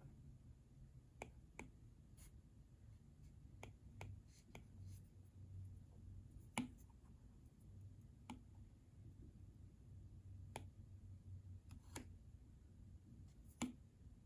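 Light, sharp clicks and taps, about ten at irregular spacing, from an Apple Pencil and its packaging being handled, against near silence; two louder clicks come about halfway through and near the end.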